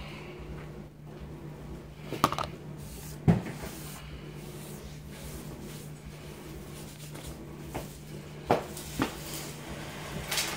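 Sharp knocks and clatters of things being handled in a kitchen: one pair about two and three seconds in, the second the loudest, and several more near the end, over a steady low hum.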